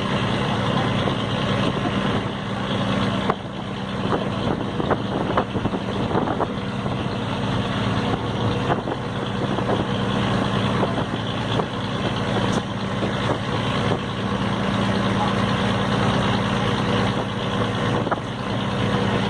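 Ferry boat's engine running steadily, a low even drone.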